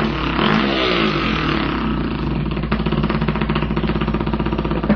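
A man imitating a dirt bike engine with his mouth: a buzzing, rattling drone that revs down and up in the first second or so, then holds a steady, rapid putter.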